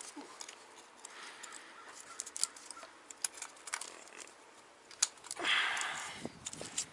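Light clicks and ticks of a wiring harness and its plastic connectors being handled and pushed through, with a brief rustle about five and a half seconds in.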